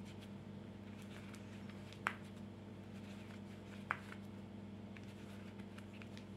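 Quiet crocheting: hands working a metal crochet hook and cotton yarn, with two sharp little clicks about two and four seconds in and a few fainter ticks, over a steady low hum.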